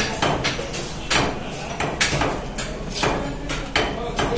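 Large fish-cutting knife chopping through fish onto a thick wooden chopping block: repeated sharp knocks, about two to three a second, some harder than others.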